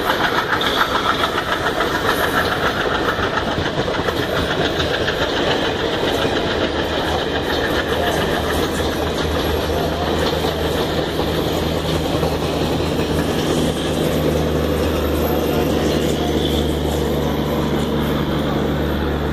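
WDM3A ALCO diesel-electric locomotive chugging hard under load, with train wheels clattering on the rails. The rhythmic chugging settles into a steadier low engine drone about eight seconds in.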